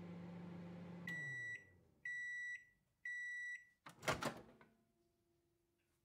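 Microwave oven hum winding down about a second in as the timer reaches zero, followed by three beeps about a second apart signalling the end of cooking. Then a short loud clunk of the door popping open.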